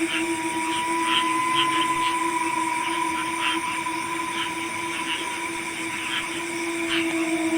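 Night-time chorus of calling insects and frogs: several steady drones at different pitches, with short chirps repeating irregularly over them. A higher drone joins at the start and fades out about seven seconds in.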